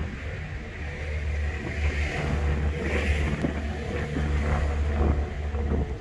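Street traffic: a motor vehicle driving past, its low engine rumble and tyre noise growing louder after about a second and easing near the end, with some wind buffeting the microphone.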